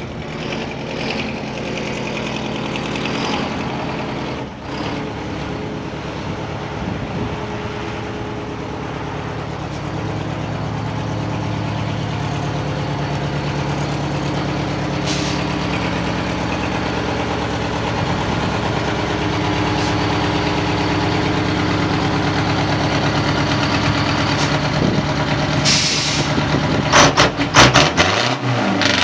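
Naturally aspirated Detroit Diesel 8V71 two-stroke V8 of a 1974 Pierce fire truck running as the truck backs up and draws closer, growing steadily louder. Short hisses of air-brake air come about halfway and again near the end, followed by a burst of sharp clicks and knocks.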